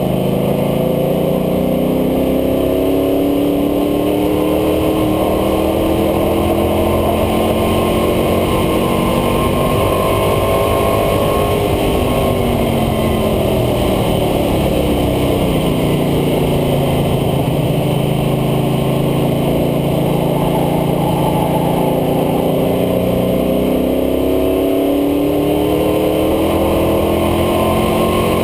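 International Harvester Scout II's engine pulling hard down a straight, its pitch climbing for about ten seconds, then falling as it comes off the throttle, holding low for several seconds and climbing again near the end. Under it runs a constant rush of wind and road noise.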